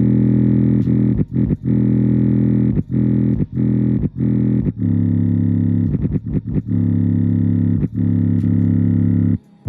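JBL Charge 4 portable Bluetooth speaker playing a loud, deep, buzzy bass tone, broken by many short cut-outs, its pitch shifting a little about halfway through.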